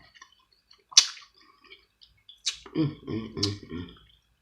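Close-up eating sounds while eating boiled crab: three sharp wet smacks or clicks, with a low murmured "mm" in the second half.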